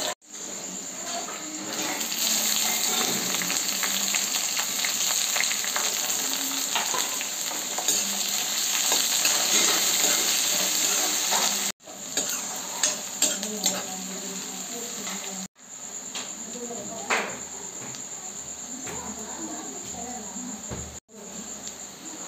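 Onions, green chillies and garlic sizzling in hot oil in a kadhai, with a metal ladle stirring and scraping against the pan in frequent short clicks. The sizzle is louder in the first half and cuts out briefly three times.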